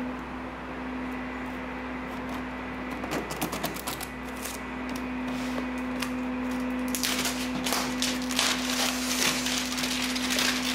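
Clear plastic shrink-wrap on a cardboard box being picked at, with scattered clicks and scratches. It is then torn and peeled away from about two-thirds of the way in, crackling and crinkling loudly. A steady low hum sits under it all.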